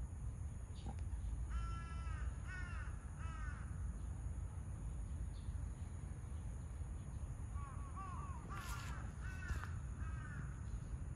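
A crow cawing in two bouts: three caws about two seconds in, then a run of several more caws from about eight seconds in, over a steady low rumble.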